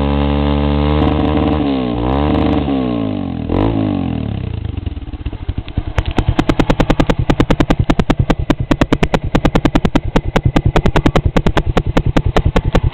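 Honda NXR Bros single-cylinder four-stroke motorcycle engine running through an aftermarket aluminium exhaust. It is revved in a few blips that rise and fall, then drops back to idle about four seconds in, settling into a loud, even beat of roughly eight exhaust pulses a second.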